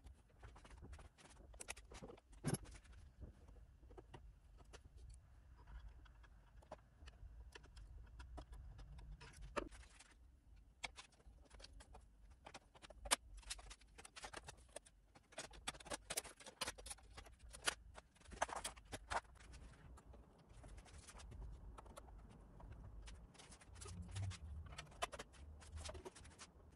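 Irregular light clicks, taps and knocks of hand work on a McIntosh MC2205 power amplifier: fingers, tools and small parts against its metal chassis and panels as it is worked on and moved about.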